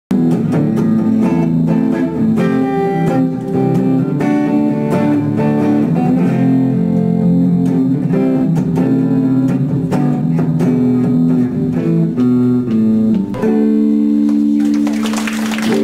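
Guitar music: plucked and strummed notes changing every fraction of a second, ending on a held chord in the last couple of seconds.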